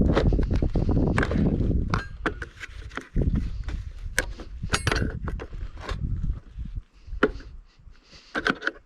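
Hand tools knocking, clinking and scraping on the metal parts of a safe door's lock, with short metallic rings among the knocks, as a part is worked loose and pried up.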